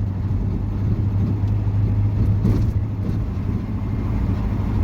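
Motor vehicle running: a steady low engine drone with road noise.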